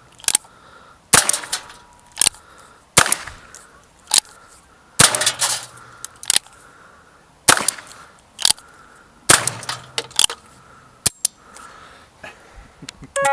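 Gunshots fired one at a time at a washing machine, about a dozen sharp cracks roughly a second apart, some followed closely by a second crack.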